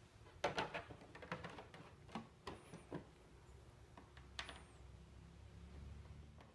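Faint, irregular clicks and taps of hands handling small screws and hardware against a snowmobile's plastic front panels, thickest in the first few seconds, with a faint low hum toward the end.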